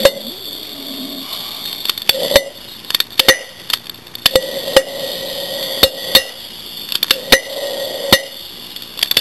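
Bubbles of hydrogen-oxygen (HHO) gas from a jar electrolyser being lit, popping with sharp cracks about a dozen times at irregular intervals, some in quick pairs, over a faint steady sizzle from the electrolysis.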